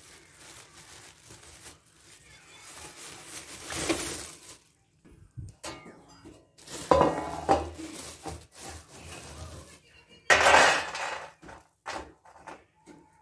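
Shelled walnut halves spilling from a plastic bag onto a metal baking tray, with a few loud bursts of clatter and plastic bag crinkling between them.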